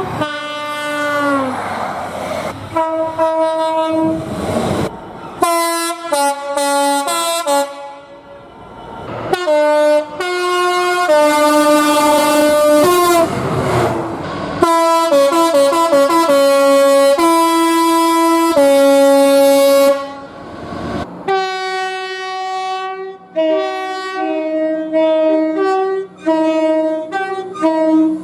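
Train air horns sounding multi-note chords, a string of long held blasts and short blasts cut abruptly one into the next. About a second in, one horn drops in pitch as the train passes, and near the end a horn gives a run of short blasts.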